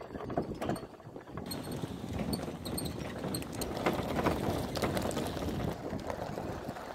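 Motorbike riding over a rough gravel track: irregular rattling, knocking and crunching of tyres on stones.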